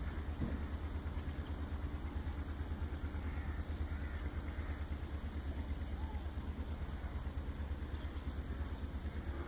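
An engine running steadily, a low hum with a fast, even throb.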